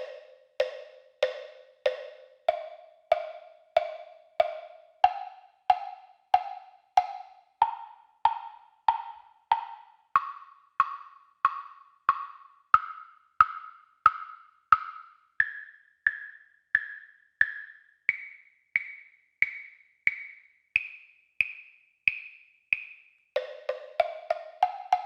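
WP AB-900S temple blocks struck one at a time, about one and a half knocks a second, each block hit several times before moving up to the next, climbing from the lowest, deepest block to the highest. Each knock is hollow and short, dying away quickly. Near the end a quicker run sweeps up from the low block to the high ones.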